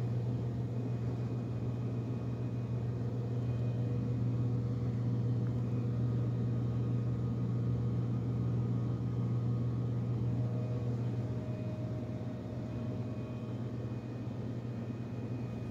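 A steady low mechanical hum with a few faint higher tones over it, swelling slightly in the middle and easing a little near the end.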